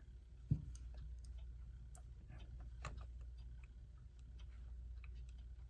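Light, scattered clicks and taps from small tools being handled on a workbench, with a dull thump about half a second in and a sharper knock near three seconds, over a low steady hum.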